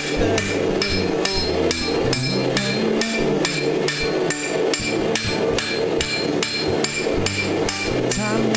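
Steady hammer blows on hot blade steel at the anvil, about three to four a second, each with a bright metallic ring: forging the bevels of a Japanese short sword.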